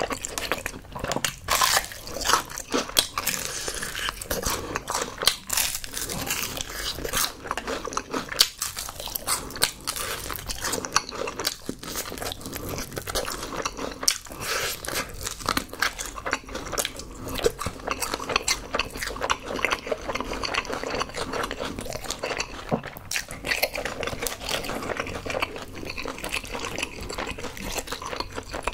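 Close-miked crunching, biting and chewing of crispy honey-glazed fried chicken (Kyochon Honey Combo), a steady run of irregular crackly bites and wet chews.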